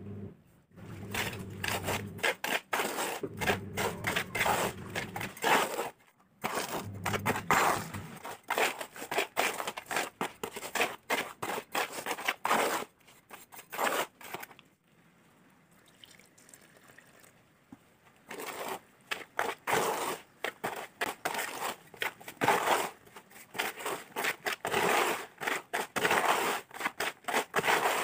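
Small pointed trowel scraping and scooping through a cement-and-sand mix in a metal basin, in quick repeated strokes, with a pause of a few seconds about halfway. A low hum runs under the first several seconds.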